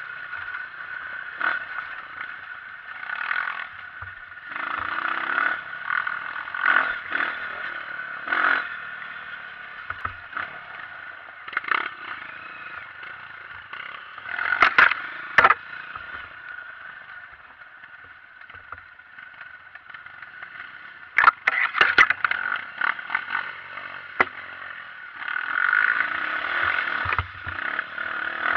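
Honda CRF230 trail motorcycle's single-cylinder four-stroke engine running while the bike clatters and scrapes over rough ground, with sharp knocks now and then, the loudest clusters about halfway through and two-thirds of the way in.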